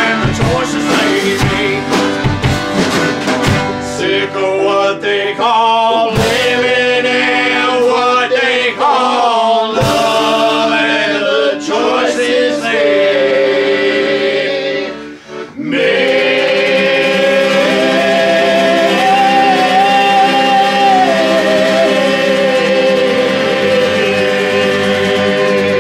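Acoustic folk band playing: acoustic guitar strumming and accordion under several men singing together. About fifteen seconds in the music briefly drops out, then comes back as a long held chord with a voice holding a high note.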